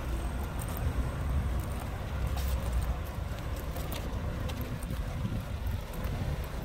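Outdoor ambience: a steady low rumble with a few faint clicks.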